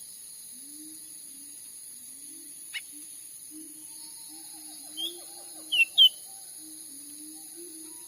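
Cucak ranting giving short, sharp chirps: one about three seconds in and a quick group of three around five to six seconds, over a steady high-pitched insect hiss.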